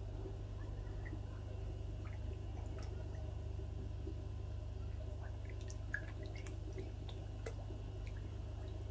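Water dripping and plopping at a koi pond: scattered small drips, most of them in the second half, over a steady low hum.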